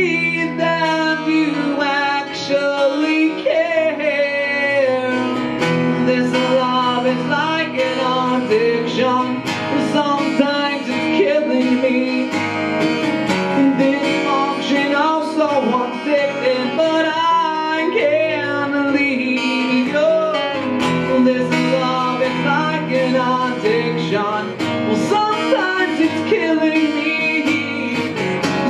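Acoustic rock song: a steadily strummed acoustic guitar with a man singing lead vocals over it.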